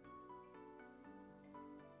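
Faint background music of held notes that change pitch every so often.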